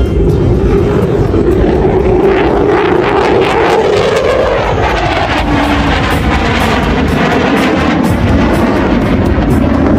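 Fixed-wing aircraft flying past, its loud engine noise swelling and shifting in pitch about halfway through as it passes.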